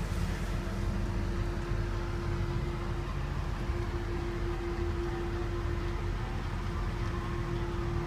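Steady low rumble with a constant hum, the background noise inside a stationary car's cabin.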